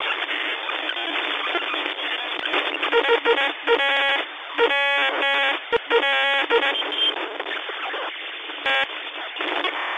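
Narrow-band static hiss, thin as if heard over a radio, with short beeping tones breaking in several times between about three and seven seconds in, and once more near nine seconds.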